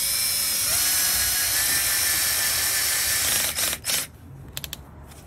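Cordless drill-driver driving a screw through a hinge leaf into a Sapele mahogany door edge. The motor spins up with a rising whine, runs steadily for about three and a half seconds, then gives a couple of short trigger blips near the end as the screw is snugged.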